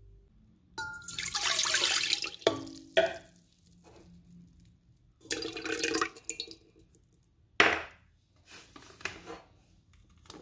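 Liquid poured into a stainless steel mixing bowl in two pours, water and melted butter splashing against the metal. There are short knocks between the pours and a sharp knock about three quarters of the way through.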